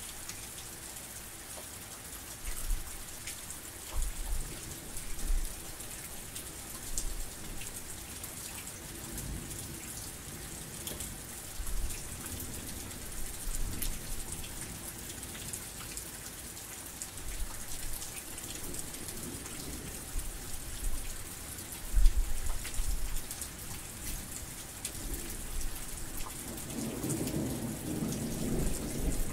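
Heavy rain falling steadily, with low rolls of thunder coming and going, and a longer rumble of thunder building near the end.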